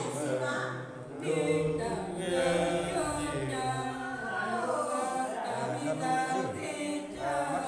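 Unaccompanied Nùng folk singing: an elderly woman's voice in chant-like song, holding long notes that bend in pitch.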